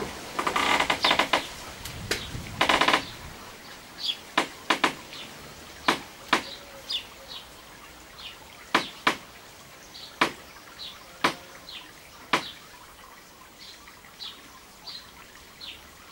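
Small songbirds chirping at irregular intervals: sharp single chirps and short high calls repeating every second or so, with two louder bursts of dense chattering in the first three seconds.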